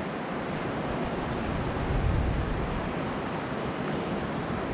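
Wind buffeting the microphone in uneven low gusts, over a steady rush of sea and water noise.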